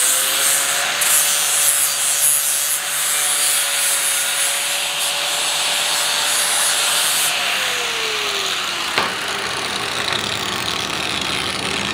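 Angle grinder with an 80-grit flap disc grinding the cut edges of a steel plate to take off the sharp edges, the motor whining at a steady pitch under the grinding. About seven seconds in the grinding stops and the motor's whine falls as the disc spins down.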